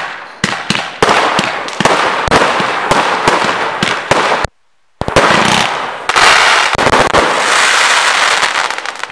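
A 120-shot mixed-calibre firework cake firing in quick succession: sharp launch and burst reports one after another, with a brief half-second break about four and a half seconds in, then the shots merge into a dense crackle for the last few seconds.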